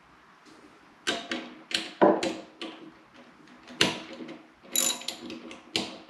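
Ratchet wrench clicking as it drives the bolts back into a furnace blower motor's housing, with sharp metallic clicks and knocks in irregular bursts starting about a second in.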